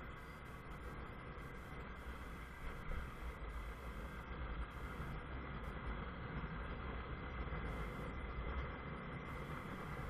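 Steady low wind rumble and road noise on a rider-worn action camera's microphone while riding a Honda CBF 125 motorcycle, growing a little louder after a couple of seconds.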